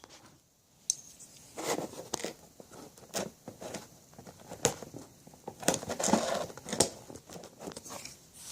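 Double-sided tape being handled and stuck onto a small quiver mount: irregular rustling, crinkling and tearing sounds with sharp little clicks and taps, busiest about two seconds in and again around six seconds in.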